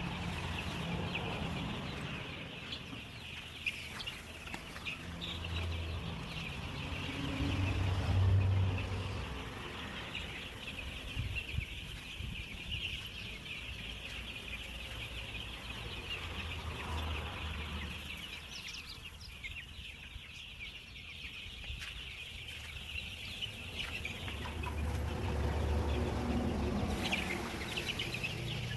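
A flock of young Kaveri chicks peeping continuously, many high overlapping chirps at once. A low rumble swells and fades a couple of times underneath.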